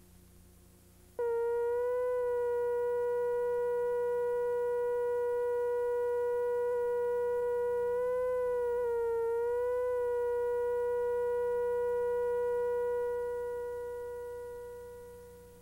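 Steady line-up test tone from a videotape's colour-bar leader, switching on abruptly about a second in. Its pitch wavers briefly around the middle, where the tape's tracking glitches, and it fades away over the last few seconds.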